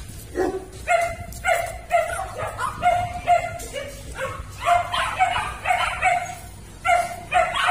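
Siberian husky giving short, high-pitched yips over and over, about two a second.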